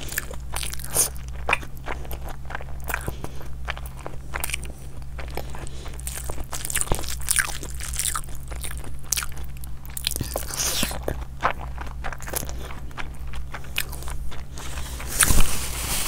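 Close-miked eating: irregular crunching and chewing of food with small mouth clicks, over a steady low hum. A louder thump sounds near the end.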